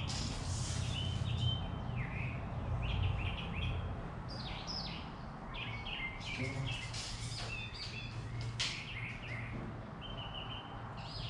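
Small birds chirping repeatedly, in short high notes scattered throughout, over a steady low hum.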